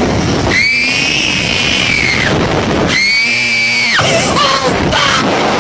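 Slingshot ride riders screaming as they are launched: two long, high-pitched screams, the first about half a second in, the second about three seconds in, over steady wind rush on the microphone.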